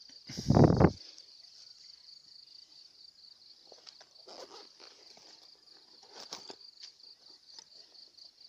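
Insects chirring steadily in a high band. Near the start comes a loud thump and rustle as a caught snakehead fish is dropped onto dry grass. Faint rustles of grass follow later.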